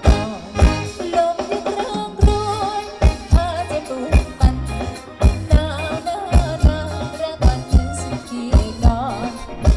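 Live Thai ramwong band music: a wavering melody line over a steady drum beat of about two to three low hits a second, played loud through stage speakers.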